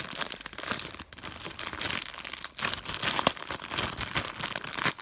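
Packaging around a slime container crinkling and rustling as it is handled, a dense run of small crackles.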